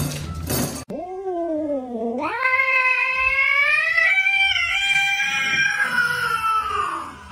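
A grey domestic cat yowling: one long, drawn-out caterwaul that dips in pitch, rises and holds with a slight waver, then slowly falls away near the end.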